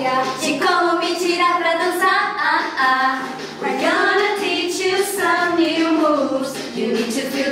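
A group of girls singing a song together in unison, holding sustained notes.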